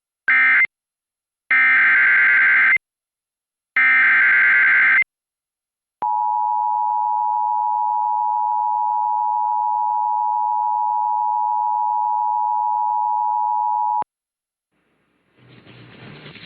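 Emergency Alert System SAME header: three bursts of digital data tones, one short and then two about a second long, followed by the EAS two-tone attention signal held steady for about eight seconds and cut off abruptly. The sequence marks the start of a new broadcast warning, and a voice fades in near the end.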